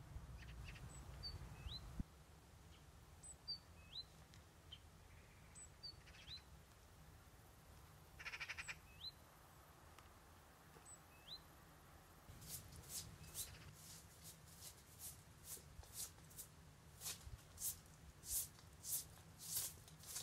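Faint short rising bird chirps, repeated every couple of seconds. About halfway in, a broom starts sweeping the ground in quick scratchy strokes, about two a second, growing louder toward the end.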